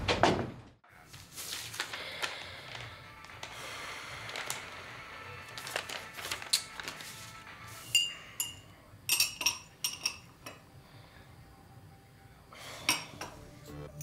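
Metal teaspoon stirring in a small porcelain coffee cup, clinking against the cup in several quick runs of light ringing clinks through the middle and again near the end, over quiet background music. A sudden thump sounds at the very start.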